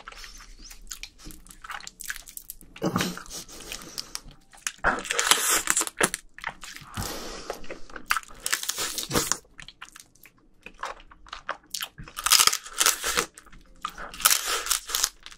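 Close-miked eating of spicy marinated raw crab (yangnyeom gejang): crunching bites and wet chewing on the sauce-coated crab, coming in several bursts with short pauses between.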